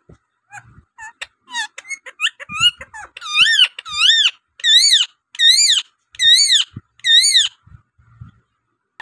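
Rose-ringed parakeet calling: a few short chirps and clicks, then from about three seconds in a run of about seven loud, evenly repeated calls, each rising and falling in pitch.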